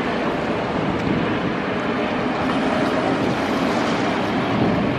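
Steady rushing roar of a Boeing 777's twin jet engines as the airliner passes low on final approach with its landing gear down, swelling slightly near the end.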